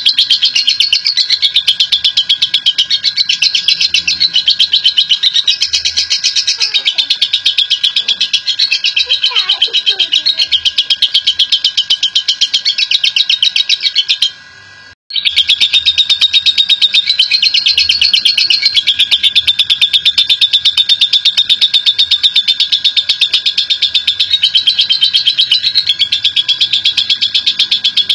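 Lovebird giving its long, rapid, high chattering trill (the 'ngekek' song), with a brief break about halfway through.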